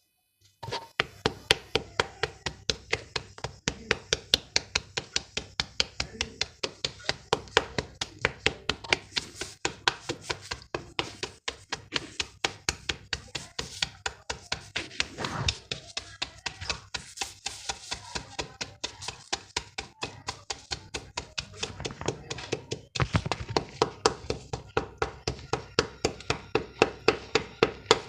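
Dried yellow mud being crunched into crumbles: a fast, steady run of sharp crisp crunches, about three or four a second, with a brief pause about twenty-three seconds in.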